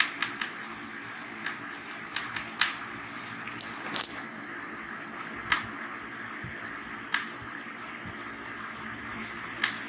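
Irregular small clicks and taps of a screwdriver and metal screws as the back-panel screws of an LED TV are undone, over a steady background hiss.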